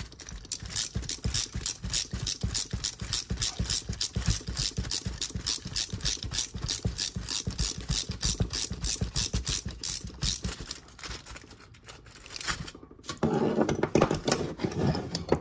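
Hand ratchet with a socket extension clicking rapidly and evenly as it backs out the last bolt on an oil pump housing. The clicking stops about twelve seconds in, followed by a louder clatter of the metal pump being handled near the end.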